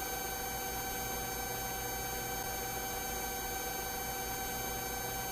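Police helicopter cabin noise: a steady hum with several fixed tones over a noise bed, unchanging throughout.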